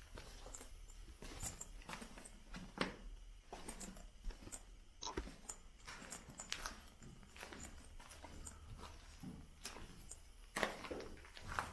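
Footsteps scuffing and crunching on the loose, rocky floor of a cave: faint, irregular clicks and scrapes over a low steady hum.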